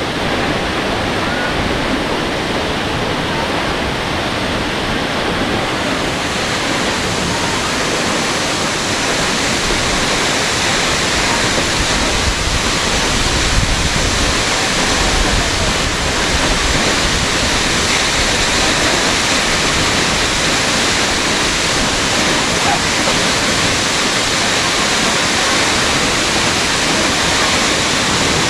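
Steady, loud rush of falling water from a tall waterfall, turning brighter about six seconds in.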